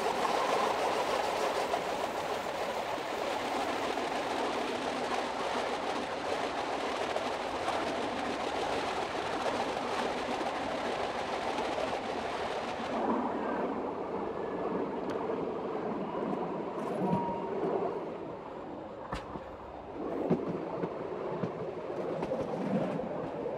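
Metre-gauge passenger train running, heard from the driver's cab: a steady rolling noise that grows duller about halfway through, with a couple of sharp clicks in the last few seconds.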